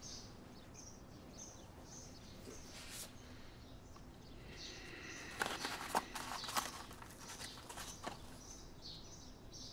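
Birds chirping softly in the background; about five seconds in, a parchment scroll is unrolled, with a few seconds of crisp rustling and crinkling of stiff paper.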